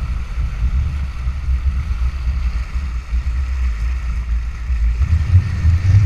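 Strong wind buffeting a pole-mounted action camera's microphone, a heavy, uneven low rumble, over the hiss of water rushing past a Nacra 14 catamaran's hulls under sail.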